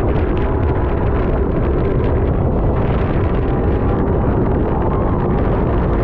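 Speedboat with three 300-hp outboard motors running at speed, a steady engine rumble with wind buffeting the microphone.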